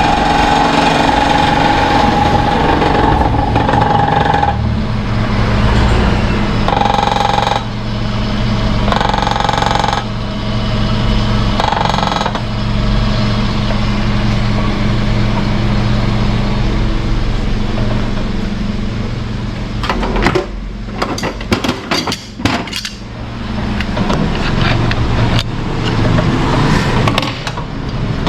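Toyota Ractis engine running and revved up in several short spells, with an abnormal noise from the engine bay. A cluster of sharp clicks or knocks comes about two-thirds of the way through. The owner traces the noise to a part that is merely touching.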